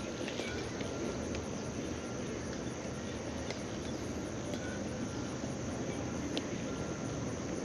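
Outdoor ambience of steady background noise with insects chirping, and a few faint scattered clicks.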